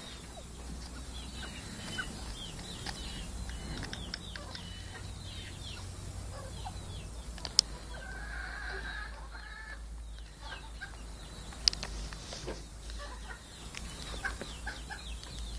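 Small brown fowl clucking and chirping: quick, short, high notes through the first half, and a longer call of about a second near the middle. A few sharp clicks are scattered through it.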